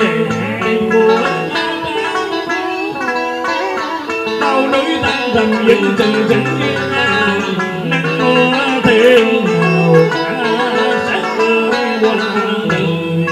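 Vietnamese cải lương tân cổ song: a man singing through a microphone over plucked guitar accompaniment.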